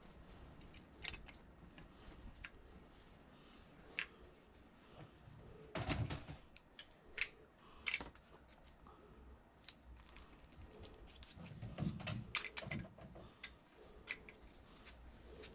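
Irregular small clicks and taps of hand tools and screws being worked while refastening the scooter's rear wheel assembly, with louder knocking clusters about six and twelve seconds in.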